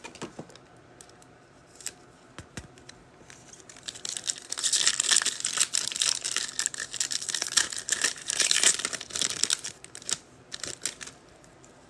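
Foil wrapper of a trading card pack being torn open and crinkled: a few light clicks, then a dense crackling rustle from about four seconds in that dies away shortly before the end.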